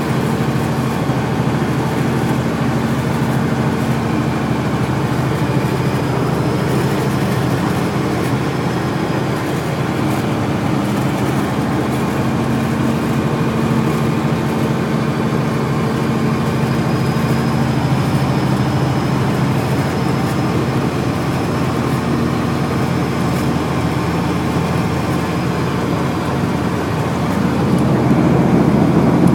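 Snowplow truck running steadily while plowing, its engine tone under a steady wash of road and blade noise. A faint high whine comes and goes, and the sound swells a little near the end.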